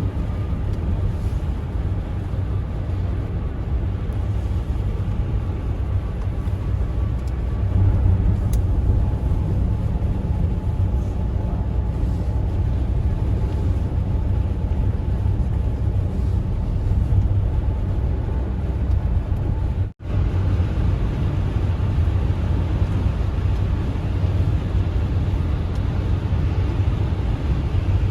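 A car driving on a highway: steady low road and engine rumble. The sound cuts out for a split second about twenty seconds in.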